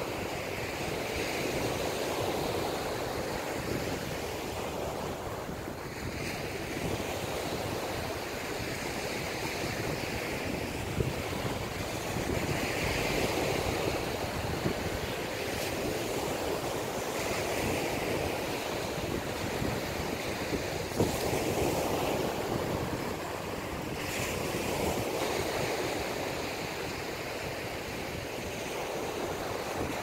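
Small sea waves breaking and washing up on a sandy beach, the surf swelling every four or five seconds, with wind buffeting the microphone as a low rumble.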